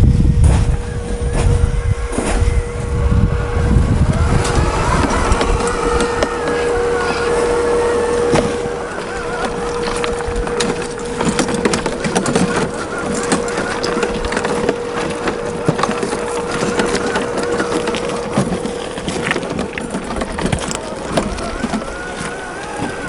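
Radio-control Tamiya CC-01 crawler's 55-turn brushed motor and gearbox whining steadily, the pitch wandering with speed, while the tyres crunch and click over rough ground.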